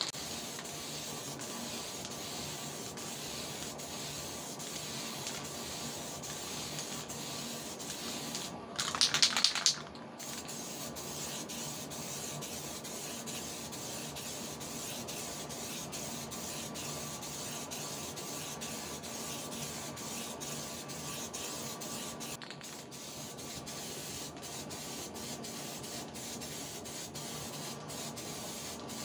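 Aerosol spray can of clear gloss lacquer hissing steadily as a thin second coat is sprayed onto a motorcycle wheel. About nine seconds in, the hiss briefly turns louder and sharper for about a second.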